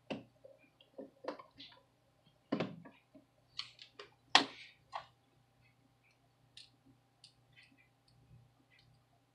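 Screwdriver and screws clicking and knocking against the plastic bottom case of an HP Chromebook 14 as its case screws are driven in. Irregular sharp clicks, the loudest in the first five seconds, then fainter scattered ticks, over a faint steady hum.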